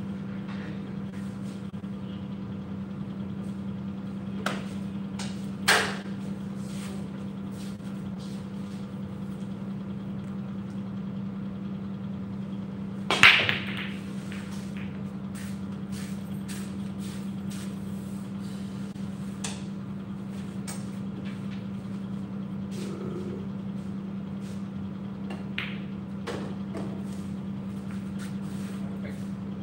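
Break shot in 9-ball: the cue ball cracks into the racked pool balls about 13 seconds in, a loud sharp crack followed by a brief rattle of balls colliding. Scattered lighter ball clicks come before and after it over a steady low hum.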